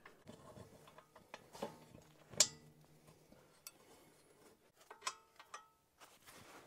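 Faint, irregular metallic clicks and clinks as the 17 mm brake caliper bracket bolts are handled and threaded by hand into the steering knuckle, with a sharper click about two and a half seconds in and a short ringing clink about five seconds in.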